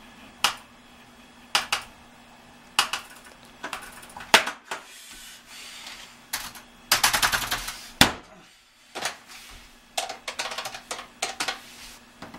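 Computer keyboard being typed on: scattered single keystroke clicks, a fast run of typing about seven seconds in, and another short flurry near the end, over a faint steady hum.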